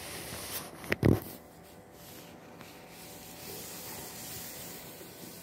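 Two kittens scuffling on a corrugated cardboard scratcher: a sharp knock and a heavy thump about a second in, then soft rubbing and scratching of paws and claws on the cardboard.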